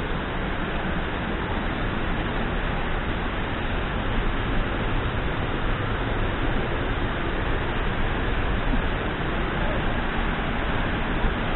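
Steady rush of falling water from a tall, strong waterfall together with rain, an even unbroken hiss.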